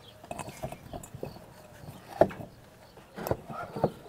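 Hands packing pieces of corn, vegetables and chicken into large glass jars: irregular knocks and clunks of food against the glass, the loudest about two seconds in.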